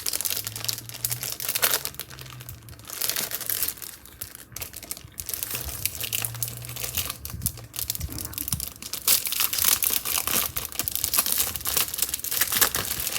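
Packaging crinkling and rustling as it is handled, in quick irregular crackles.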